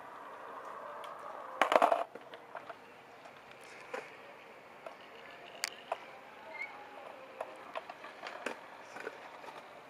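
Skateboards on concrete: scattered sharp clacks and knocks of boards and wheels over a low background hiss, with a louder burst of noise about two seconds in.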